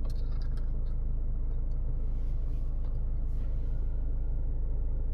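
Steady low rumble of a car idling, heard inside the cabin, with a few faint clicks near the start.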